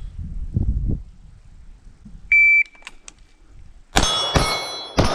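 Shot timer gives one short high beep, and about a second and a half later pistol shots begin, three in just over a second. Each is followed by the ringing of a struck steel target plate.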